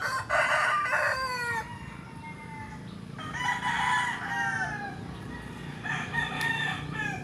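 Roosters crowing: three long crows one after another, each trailing off downward in pitch.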